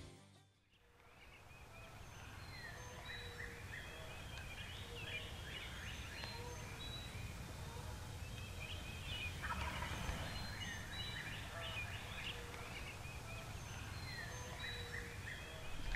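Wild turkey gobbling at dawn, with songbirds chirping throughout.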